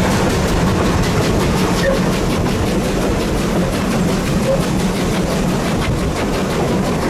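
Railway train running along the track: a steady rumble with wheel noise on the rails.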